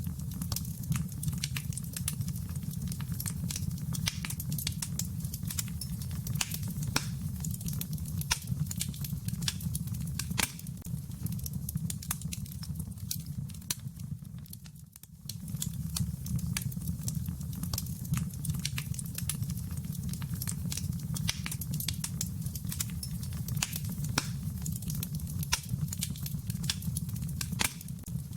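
Wood fire crackling in a fireplace: irregular pops and snaps over a steady low rumble of the flames, briefly fading about halfway through.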